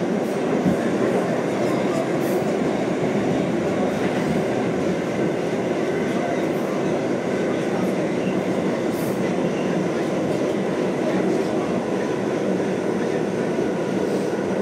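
Westinghouse-Amrail R68 subway car running at speed underground, heard from inside the car: a steady, even rumble of wheels on rail and running gear, with a few faint clicks over the top.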